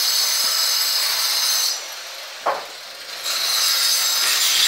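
A steady high hiss with a faint whine in it, which drops away for about a second and a half mid-way, and a single sharp metallic click about halfway through as the router's metal plunge-base parts are handled.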